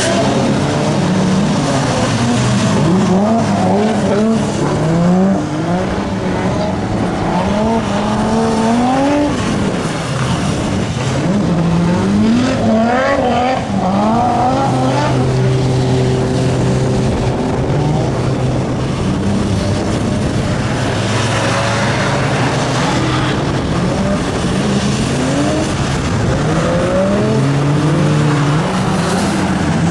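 Cars lapping a race circuit, their engines revving up again and again through gear changes, with stretches of steadier engine drone and some tyre squeal.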